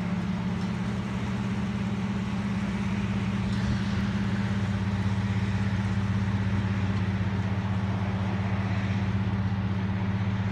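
A vehicle engine idling steadily close by, a low hum with a fast, even pulse, while a pickup truck drives past about halfway through.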